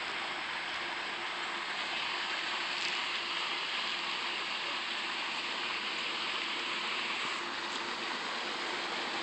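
Steady rushing hiss of running water, with a faint steady hum under it.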